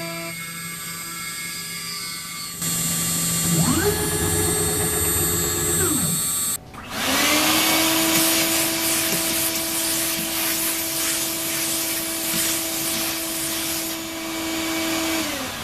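CNC router spindle spinning up to a steady whine, running, and winding down, twice. A loud rushing air noise sounds under it, and there is a low steady hum at the start.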